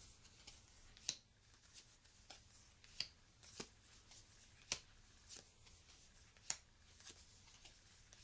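Playing cards being laid one at a time onto a pile as they are counted out: about a dozen faint, irregular card clicks and snaps.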